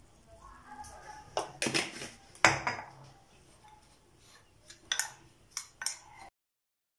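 Metal teaspoon clinking and scraping against a ceramic bowl as spices are stirred into dry breadcrumbs: a few separate clinks, the loudest about two and a half seconds in. The sound cuts off abruptly a little after six seconds in.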